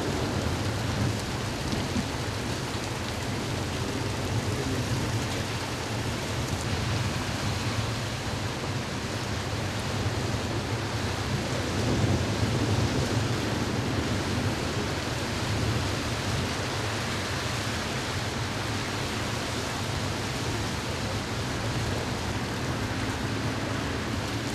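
Heavy downpour: a steady hiss of rain pouring onto flooded pavement, over a constant low rumble.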